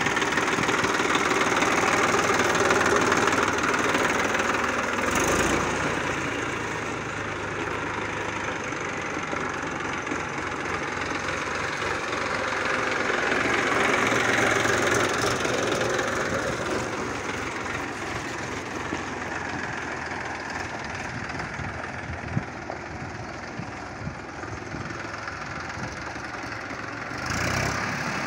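Massey Ferguson 1035 DI tractor's three-cylinder diesel engine running as the tractor is driven about. It is loudest as the tractor passes close, then quieter as it moves off.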